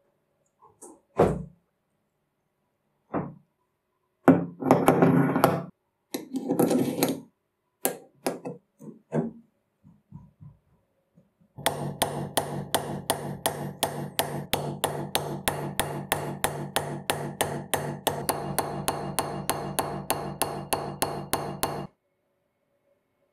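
Ball-peen hammer peening rivets on an anvil: a long run of quick, even metal taps, about four a second, starting about halfway through and stopping shortly before the end. Before that come scattered knocks and two short scraping bursts.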